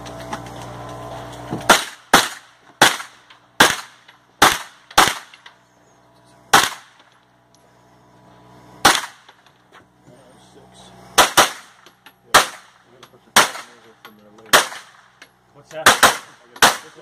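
Gunshots from a 9mm pistol-caliber carbine fired as aimed single shots: about six in quick succession starting about two seconds in, then slower shots with a gap of about two seconds in the middle, and a quick group near the end, about sixteen in all.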